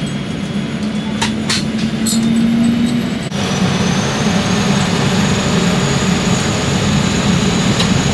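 Aircraft engines running with a steady, loud noise, with a brief break about three seconds in and a faint high whine after it.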